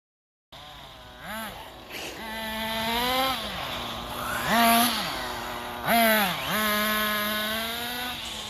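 Radio-controlled car's motor revving up and down, its pitch holding steady and then swooping several times. It starts abruptly about half a second in.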